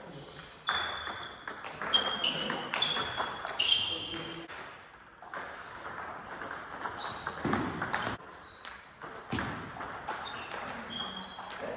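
Table tennis ball knocked back and forth: a quick run of sharp, ringing pings off the paddles and table, a lull of a couple of seconds, then a few more scattered pings.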